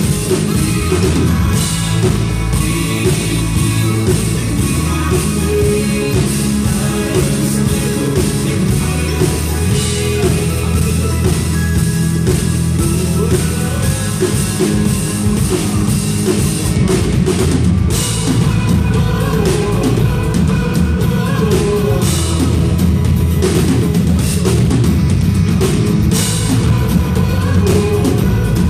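A worship band playing an instrumental break in rock style, with drum kit, bass and electric guitar, and perhaps some faint singing.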